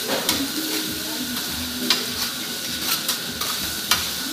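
Food sizzling on a hot teppanyaki griddle while two metal spatulas scrape and chop through it, with a few sharp clacks of steel on the steel plate.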